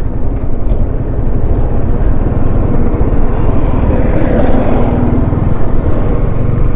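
Yamaha R15 motorcycle being ridden on the road: wind rushing and buffeting over the action camera's external microphone, with the single-cylinder engine running underneath.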